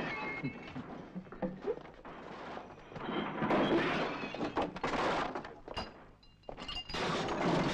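Crashes, thuds and breaking as wooden furniture and wall fittings in a bar are smashed up, one impact after another with louder bouts a few seconds in and again near the end.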